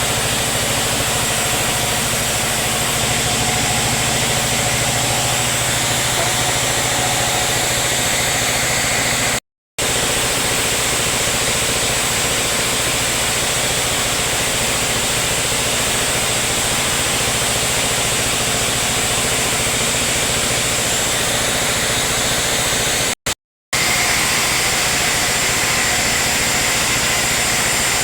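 Sawmill machinery running steadily: an engine hum under a constant hiss, broken twice by a brief, sudden silence.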